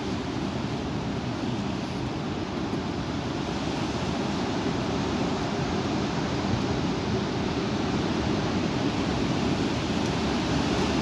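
Strong wind rushing steadily, growing slightly louder toward the end.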